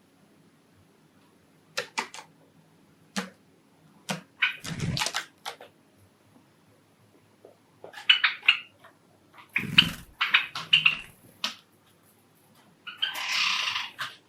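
Java sparrows giving short, sharp chirps and call notes at scattered moments, with a noisy rustling burst lasting about a second near the end.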